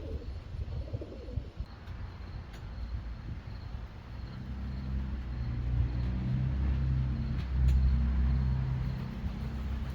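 Pigeons cooing briefly at the start, then the low steady hum of a vehicle engine that grows from about four seconds in and is loudest around eight seconds.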